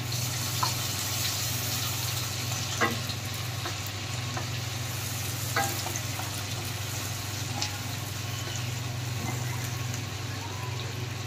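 Chopped garlic, ginger and green chillies sizzling steadily in hot oil and melted butter in a nonstick kadhai, with a wooden spatula now and then stirring and tapping against the pan.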